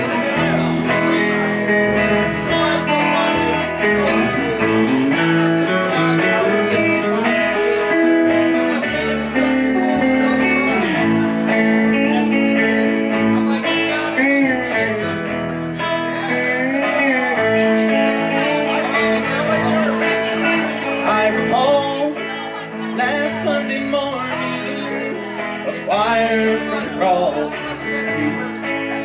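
Live country band playing an instrumental break: a guitar lead with bent notes over electric guitar and upright bass.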